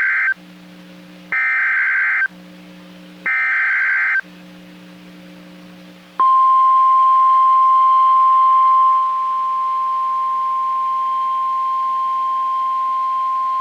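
NOAA Weather Radio emergency alert: three short bursts of SAME digital header data, about a second apart, followed about six seconds in by the steady single-pitch 1050 Hz warning alarm tone. Here they open a tornado warning.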